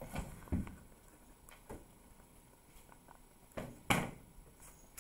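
A hand settling onto the pages of a paper notebook and a pen starting to write, heard as a few soft knocks and paper rustles. The loudest knock comes about four seconds in.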